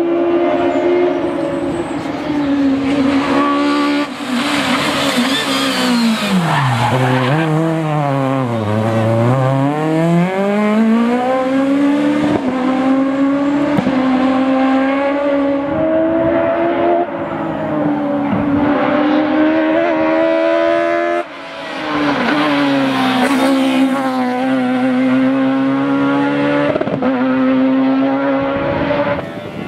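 Peugeot 306 Maxi rally car's naturally aspirated four-cylinder engine driven hard, revs rising and falling through quick gear changes. Partway through, the pitch drops low twice and climbs again under acceleration. A high hiss rises with it twice.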